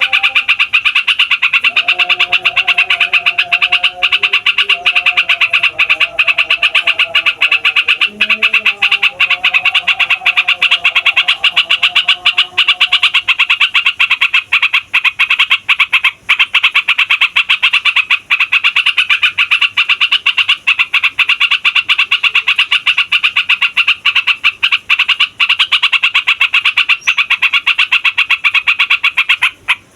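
Yellow-vented bulbul (trucukan) singing a long, unbroken rolling song, a fast chatter of notes that never pauses. For about the first half, lower calls sound beneath it.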